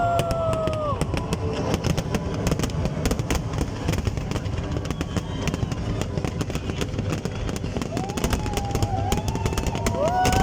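Fireworks display going off: a dense run of bangs and crackles over music, with a long held note near the end.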